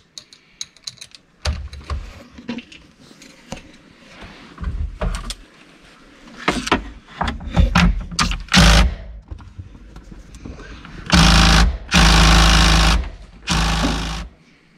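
Metal tools clicking and clinking on fasteners in the car's rear battery compartment as the hybrid IMA battery pack is unbolted. Near the end a cordless power driver runs in three short bursts of about a second each.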